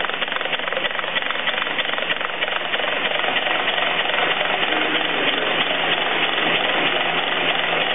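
Prototype pneumatic rotary motor running on compressed air: a steady, noisy mechanical run with a fast ticking pulse, growing a little louder about three seconds in.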